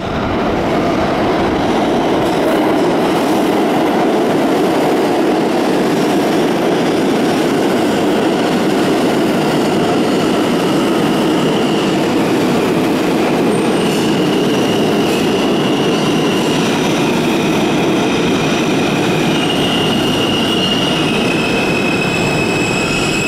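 R160 subway train pulling into an underground station: a loud, steady noise of wheels running on the rails. From about halfway, high-pitched squealing tones join in as the train slows.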